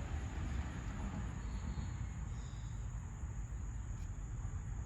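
Quiet steady background noise with a faint, steady high-pitched whine and no distinct event.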